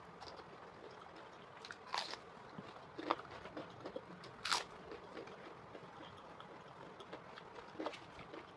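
A person chewing and biting into crisp food: a run of small crackly crunches with a few louder bites spread through.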